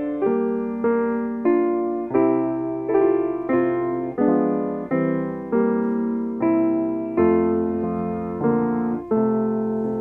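Grand piano played solo: a steady succession of chords, one struck about every two-thirds of a second, each left to ring and fade before the next.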